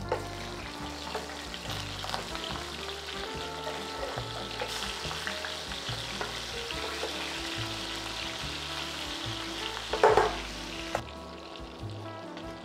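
Lamb rib chops searing in hot oil in a frying pan as they are flipped with metal tongs, a steady sizzle that grows louder about five seconds in and thins out near the end. There is a brief knock about ten seconds in. Soft background music plays underneath.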